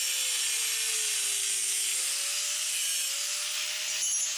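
DeWalt angle grinder with a cut-off wheel cutting through a steel exhaust pipe flange ring, a steady grinding screech over the motor's whine. The motor pitch sags under load, then rises about two seconds in as the wheel eases off the metal and spins more freely.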